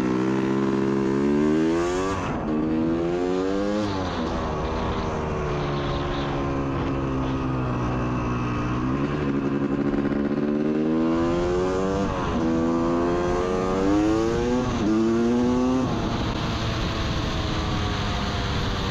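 Motorcycle engine accelerating through the gears, heard from the rider's position: the pitch climbs, drops sharply at each upshift and climbs again, several times over, with wind rushing over the microphone.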